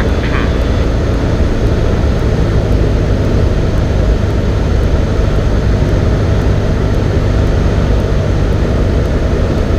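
Cessna 172N's four-cylinder Lycoming engine and propeller droning steadily in flight, heard from inside the cabin.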